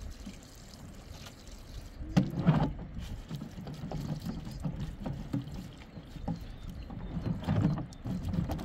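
Water from a pipe pouring into a plastic jerry can as it fills: a low, uneven gurgling that grows louder about two seconds in.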